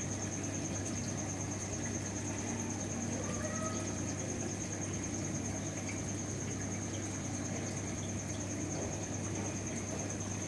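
Steady low mechanical hum with a thin high-pitched whine above it, unchanging throughout: the background drone of aquarium pumps and life-support equipment.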